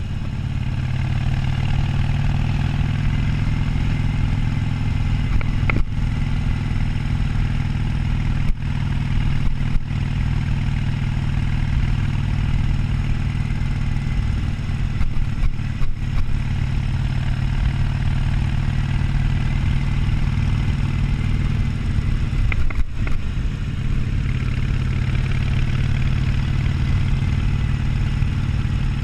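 Harley-Davidson Sportster 1200's air-cooled V-twin running at a steady cruise while being ridden, with wind rushing past. The engine note drops briefly near the end and then picks up again, as when the throttle is rolled off or a gear is shifted.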